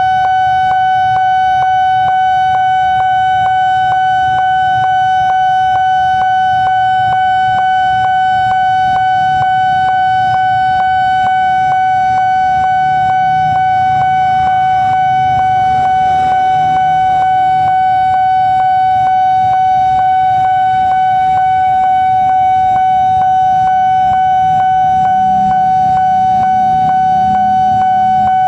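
Railway level crossing warning alarm sounding continuously: a single steady electronic tone pulsing at a fast, even rate, warning that a train is approaching and the barrier is down.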